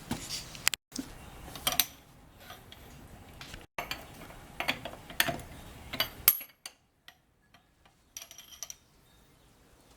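Metal hand tools clinking: the lug wrench and its extension being handled, with irregular sharp clinks, the loudest about six seconds in, and a brief clatter a little after eight seconds.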